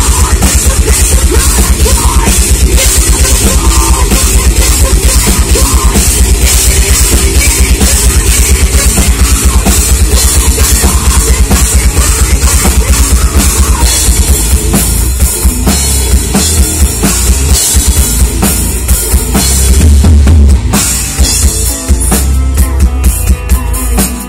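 Live heavy metal band playing very loud: rapid, dense drumming with a pounding bass drum and cymbals, distorted guitars and bass, and a singer on microphone. About twenty seconds in, the steady barrage breaks into separate heavy hits.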